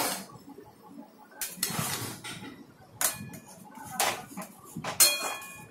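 Metal spatula scraping and knocking against a kadhai (wok) while stirring a thin gravy, in separate strokes about once a second.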